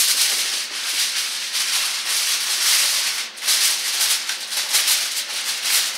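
Aluminum foil crinkling and crackling continuously as it is folded and wrapped around a cell phone by hand.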